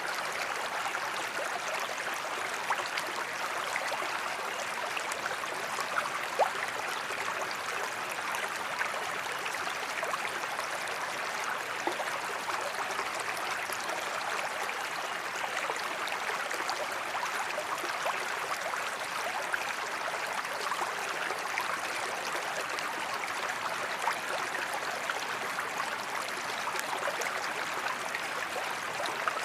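A creek running over stones, a steady rush of water with small splashes and gurgles.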